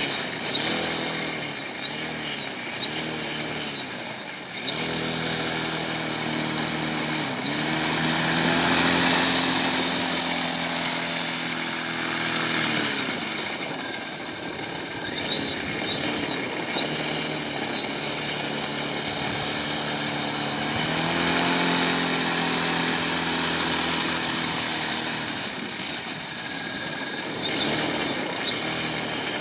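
Homemade aerosled's propeller drive running, its pitch rising and falling several times as the sled speeds up and turns on the ice.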